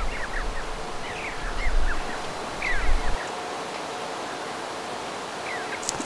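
Outdoor mountain ambience with small birds giving short, high chirps again and again over a steady hiss. A low rumble drops out about three seconds in.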